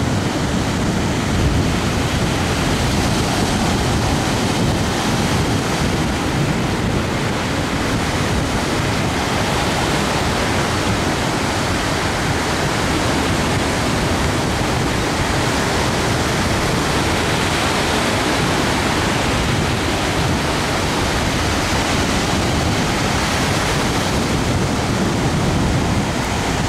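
Ocean surf breaking and washing up on a sandy beach: a steady, unbroken rush of waves.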